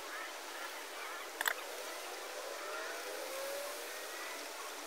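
Steady outdoor hiss with a faint distant motor slowly rising in pitch, and a single sharp click about one and a half seconds in.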